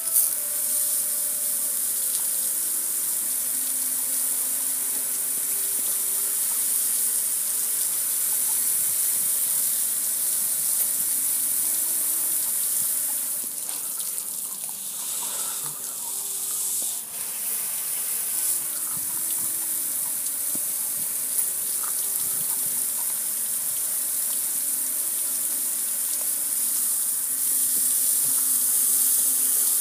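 Steady hiss of water sprayed from a hose, splashing over the metal lid and panel of a gas grill. The spray dips briefly about halfway through.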